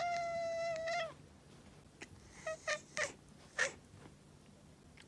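Ginger cat meowing: one long, level meow that ends about a second in, then three or four short meows between two and four seconds in.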